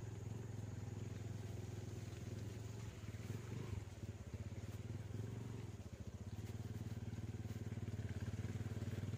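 Vehicle engine running at a steady low note while the vehicle works for grip on slippery mud, dipping briefly twice around the middle.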